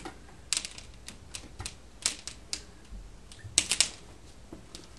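Irregular sharp clicks and taps from hands pressing strips of modelling clay onto a clay mound on a board, with a quick cluster of louder clicks about three and a half seconds in.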